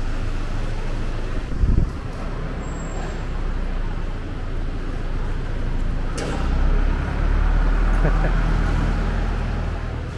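Steady low rumble of engine and vehicle noise at an airport apron, swelling louder about two-thirds of the way through, with a brief low thump about two seconds in.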